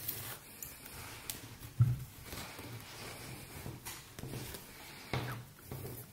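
Soft rustling and handling of a crocheted cotton-cord bag as a needle and cord are pulled through the holes of its support base, with a dull bump about two seconds in.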